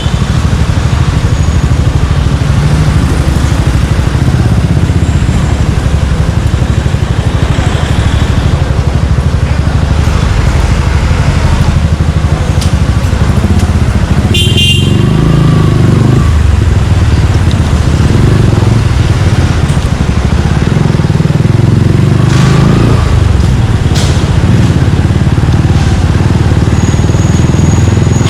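Suzuki Gixxer 155's single-cylinder engine running loud through an aftermarket Yoshimura exhaust while riding in traffic, its revs rising and falling. A short horn beep sounds about halfway through.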